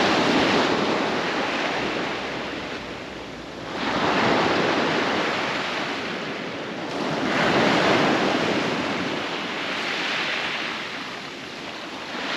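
Ocean surf breaking and washing up the shore in slow surges every few seconds, with wind buffeting the microphone.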